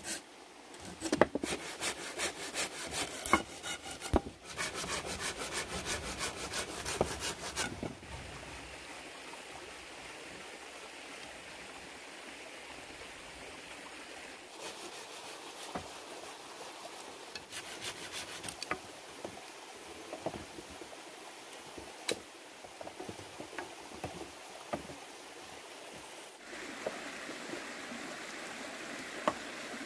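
Wood being sawn by hand in repeated back-and-forth strokes with short pauses, stopping about eight seconds in. A faint steady background follows, with scattered light knocks and clicks.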